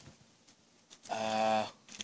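A car horn sounding once, a short steady honk about half a second long, about a second in.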